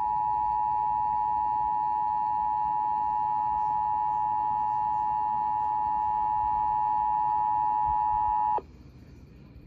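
Emergency Alert System attention signal on an FM radio broadcast: two steady tones sounded together, held unchanged for about eight and a half seconds and then cut off suddenly. It marks the start of an emergency alert, here a severe thunderstorm warning.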